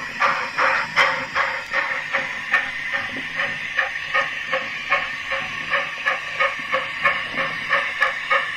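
Steam locomotive exhaust chuffing at an even beat of about two to three chuffs a second, with steam hiss between the beats, standing in as the sound of a model steam locomotive on the move.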